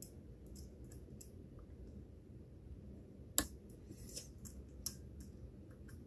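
Faint metallic ticks and clicks of a hook pick working the spool-pinned stack of the OverReach challenge lock under tension, with one sharper click about three and a half seconds in and two smaller ones soon after.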